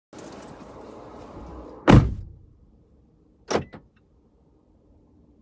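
Car door slammed shut from outside about two seconds in, heard from inside the cabin, followed about a second and a half later by a softer thump with a couple of small clicks. After that only the faint low hum of the car's engine left idling.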